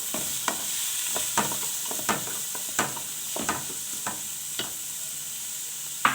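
Finely sliced onion sizzling in hot oil in a paella pan, being stirred: a steady high sizzle with a utensil scraping and knocking against the pan about every half second, the strokes thinning out in the second half and one sharper knock near the end.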